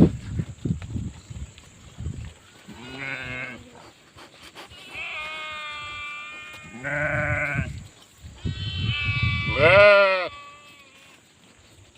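Sheep bleating: about four separate calls of differing pitch and length, the loudest near the end.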